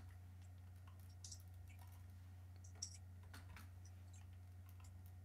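Near silence over a steady low electrical hum, with faint scattered clicks and one sharper click about three seconds in.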